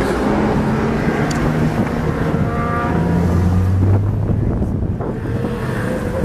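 Car engine running with a low, steady drone that grows louder about three seconds in and eases off after four, with some wind on the microphone.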